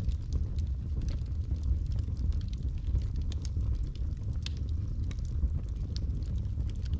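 Wood fire crackling in a fireplace: sparse sharp pops and snaps scattered over a steady low rumble, blended with rain.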